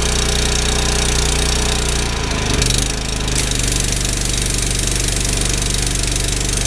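A 3000 psi pressure washer with a turbo nozzle: its engine runs steadily while the jet hisses against a deer hide. The engine's note shifts briefly about two and a half seconds in, and the spray hiss thins for a moment around then.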